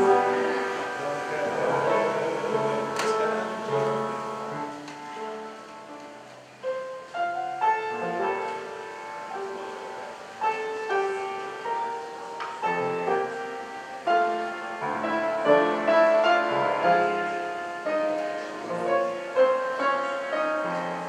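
Instrumental keyboard music, a prelude played by the church organist, with notes that start sharply and ring on. A single sharp click comes about three seconds in.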